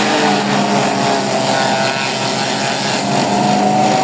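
Forage chopper driven by a 7.5 hp petrol engine, running steadily; its pitch sags a little in the middle and rises again near the end.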